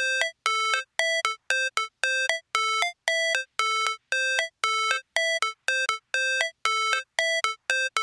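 Outro music: a simple electronic jingle of short, separate notes, about two or three a second, hopping between two or three pitches.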